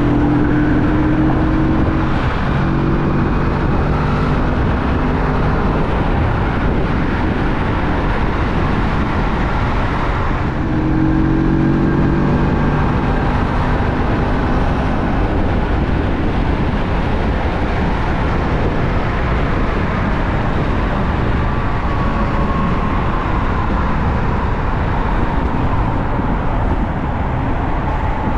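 Kawasaki Vulcan S 650 parallel-twin engine running at road speed under a steady rush of wind and road noise. The engine note stands out briefly near the start and again about ten seconds in.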